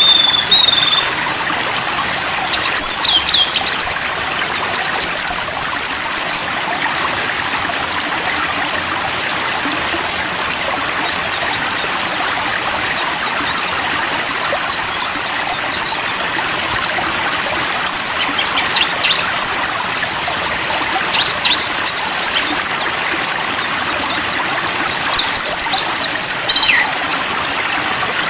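Steady rush of running water, like a flowing stream. Short high bird chirps and trills break in several times, every few seconds.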